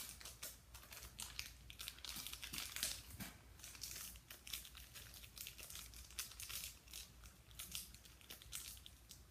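Small plastic blind-bag packaging crinkling faintly as it is handled and opened, in many short, irregular crackles.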